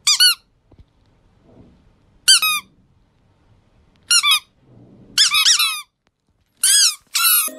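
Squeaky plush chick toy squeaking in six short bursts of quick high-pitched squeaks, separated by pauses of a second or two; the longest burst comes past the middle.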